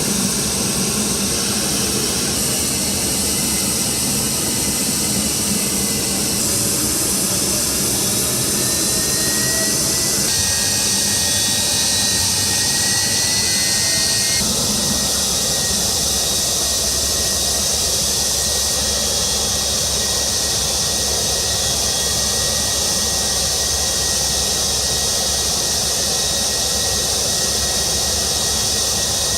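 Jet engines of a Beriev Be-200 amphibious firefighting aircraft running steadily, loud, with a strong high whine; a faint rising whine comes in partway through.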